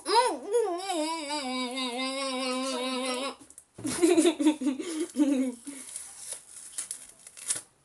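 A young voice humming a long note that wavers at first and then holds steady, breaking off after about three seconds; after a short pause it hums again with a wobbling pitch, then gives way to faint scattered clicks.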